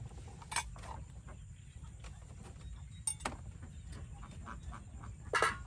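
A few sharp clinks and knocks as a metal spatula and wok are handled on a clay stove, the loudest clink near the end, over a steady low rumble.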